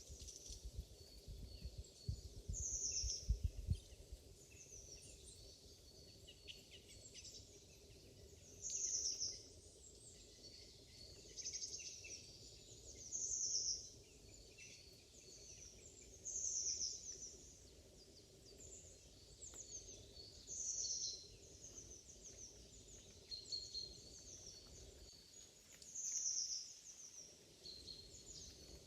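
A songbird repeating a short, high, falling song phrase every few seconds, with fainter chirps from other birds between. In the first few seconds there are soft crunching steps through dry fallen leaves.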